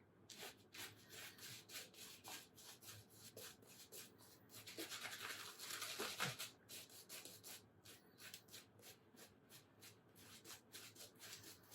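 Shaving brush working soap lather, a soft, faint rubbing in short repeated strokes, a little louder near the middle.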